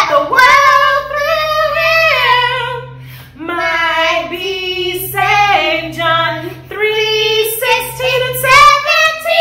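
A woman and a young girl singing a worship song together in phrases of held notes, with a short break about three seconds in.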